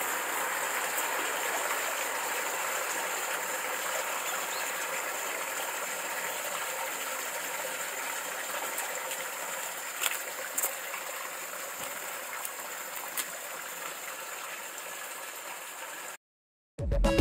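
Steady trickling water at a carp pond, with a few light clicks. It fades out near the end, and music starts just after.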